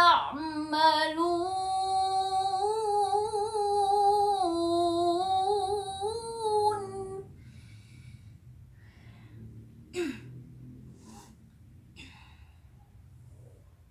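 A child's voice chanting Quran recitation in melodic tilawah style, holding one long ornamented note on the end of the verse for about seven seconds, then breaking off into a pause with only faint sounds and a brief short vocal sound near ten seconds.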